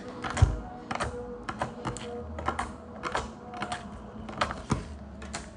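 Slime being pressed and poked with the fingers, giving off a run of small sharp clicks and pops as air pockets in it burst, irregular at a few per second.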